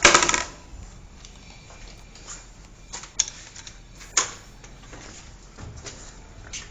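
Plastic drain pipe and fittings clicking and knocking as they are handled and pushed together for gluing. The loudest knocks come right at the start, then a few single knocks follow at intervals.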